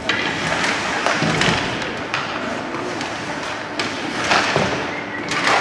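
Ice hockey play in a rink: a string of sharp thumps and knocks from the puck, sticks and players hitting the boards and ice, over a steady background din.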